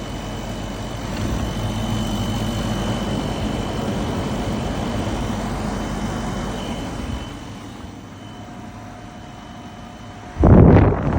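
Portable air conditioner running: a steady fan and motor hum with a faint high whine. About seven seconds in it turns quieter, and near the end a loud rush of noise starts suddenly.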